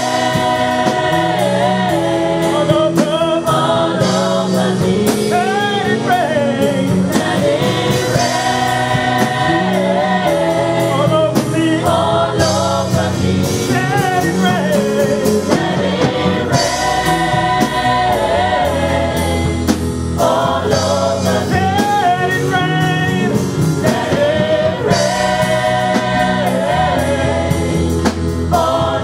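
Live gospel worship song: a group of men and women singing together into microphones over a live band with drums.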